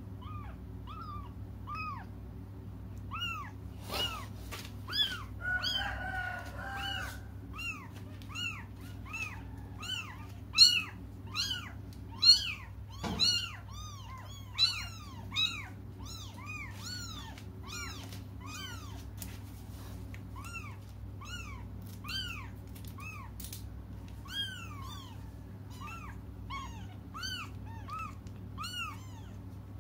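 Newborn kittens crying with thin, high-pitched mews, about two calls a second, loudest in the middle: young kittens calling for their absent mother. A steady low hum runs underneath.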